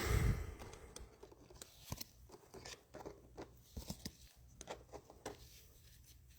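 A soft low thump at the start, then faint, scattered clicks and rustles of trading cards and plastic card sleeves being handled on a table.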